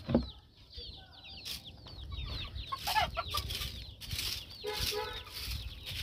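Young chicks peeping over and over in short, falling chirps, with a few lower clucks from hens.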